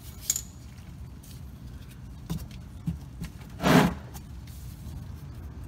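Oil drain plug being turned out by hand: a few light clicks and one louder scuff a little past halfway, over a steady low hum.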